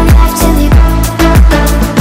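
Background music with a deep kick drum that drops in pitch on each hit, over a steady instrumental backing.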